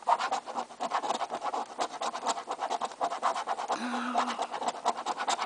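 A coin scraping the scratch-off coating from a lottery ticket in rapid, repeated back-and-forth strokes.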